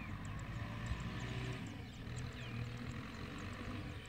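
Wind buffeting the microphone over the faint, steady drone of a distant tractor engine, with birds chirping in short downward-sweeping calls and quick high ticks.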